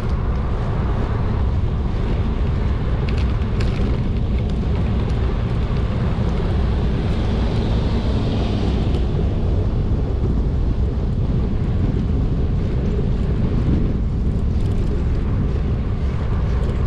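Strong wind buffeting the microphone of a moving bicycle, a steady low rush of noise as the rider coasts downhill into a headwind.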